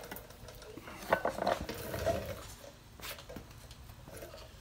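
Light metallic clicks and clinks as a bench vise is opened and a small brass fuel inlet fitting is taken out of its jaws: a cluster of clicks about a second in and a single sharp click around three seconds.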